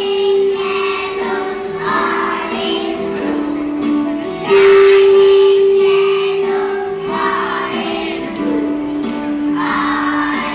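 A song with voices singing over instrumental backing, the melody moving through long held notes.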